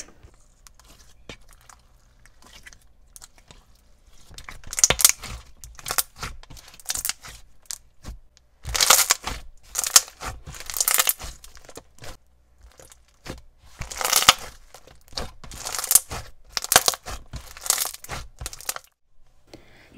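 Clear jelly-cube slime being squeezed and kneaded by hand, giving clusters of crackling bubble pops. The first few seconds are quiet, and the popping comes in bursts after that.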